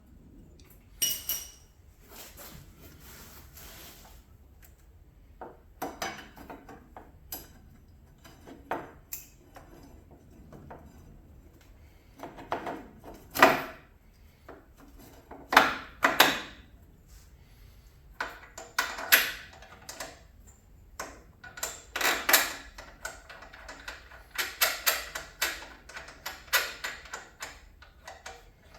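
Hand tools clinking and clicking against metal in irregular bursts as a motorcycle's front brake caliper bolts are fitted and tightened, with a short metallic ping about a second in.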